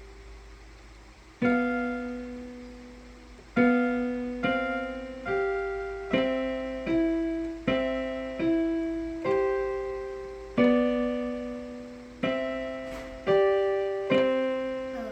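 Piano played slowly by a young child: single notes and two-note chords struck one at a time, about a dozen in all, each left to ring and fade. It is a simple beginner's dance built on broken C–E–G and B–D–G chords.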